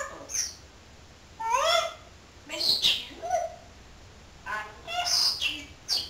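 African grey parrot calling: a run of four or five short pitched calls, several of them rising in pitch.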